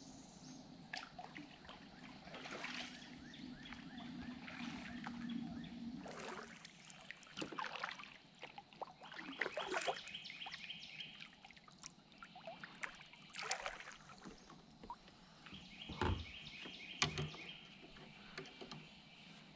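Kayak paddle dipping into calm river water, with irregular splashes and dripping trickles from the blades as the small kayak is paddled along. There are a couple of sharper splashes or knocks near the end, and a rapid high trill is heard twice.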